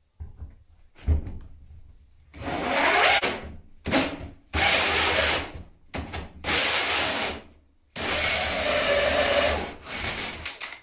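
Ozito cordless drill driving a large hole saw through a plasterboard ceiling in about half a dozen short bursts of cutting, the longest near the end, enlarging an existing downlight hole until the cut-out piece comes free.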